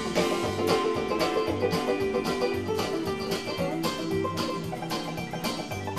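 Upbeat music with a steady beat and a repeating bass line.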